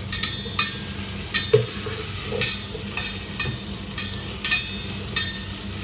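Oil sizzling steadily in a stainless steel pot while a utensil stirs, with repeated sharp clicks and scrapes of the utensil against the pot at irregular intervals.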